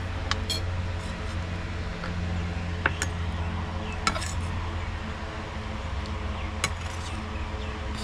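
Metal serving spoon clinking against ceramic plates as fried rice is dished out: about half a dozen sharp clinks, mostly in close pairs, over the steady low hum of an electric fan.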